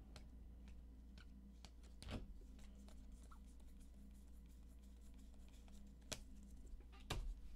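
Faint handling of trading cards being flipped through by hand: scattered soft clicks and rustles, with a few light taps about 2, 6 and 7 seconds in, over a low steady hum.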